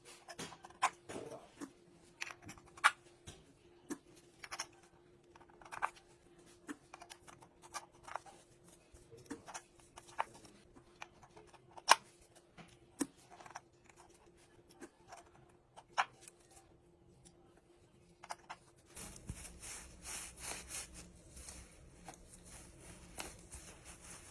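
Small metal engine parts clicking and knocking as they are handled and fitted, in irregular sharp taps over a faint steady hum. About three-quarters of the way in, a steady rushing noise starts and runs on under the taps.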